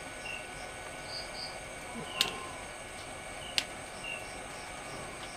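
Two sharp clicks about a second and a half apart from the push button of a DIY 18650 power bank case, pressed to switch on its flashlight, which stays off. Under them a steady background of insects trilling, with a few short chirps.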